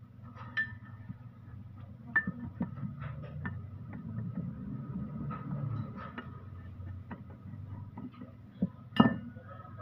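Scattered metal clicks and knocks from the parts of a Canter truck's steering gearbox being handled and worked apart by hand, the steel arm shifting on its splined shaft, over a steady low rumble. The sharpest knock comes near the end.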